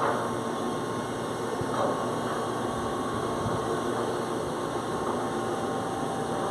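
Ship's crane motor running with a steady hum and hiss, with a faint steady tone above it and a couple of light knocks in the first two seconds.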